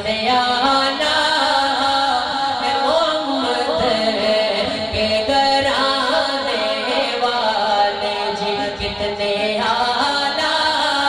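A male naat reciter singing an Urdu devotional naat into a microphone, heard through the sound system, the voice holding long, bending melodic lines.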